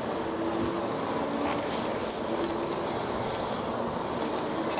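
Riding noise from an electric bicycle underway: a steady rushing noise with a faint motor hum that comes and goes.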